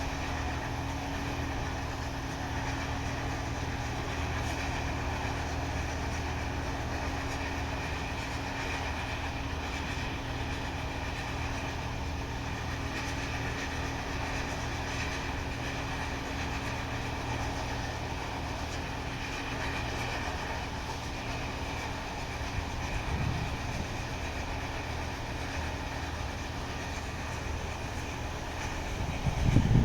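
Combine harvester running steadily: a continuous low engine drone with a steady higher hum over it.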